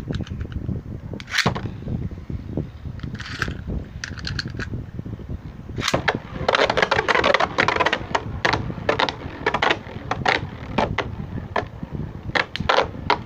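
Plastic clicking and rattling from a Beyblade Burst top and its launcher: a few separate clicks, then a dense rapid clatter starting about six seconds in, then scattered clicks.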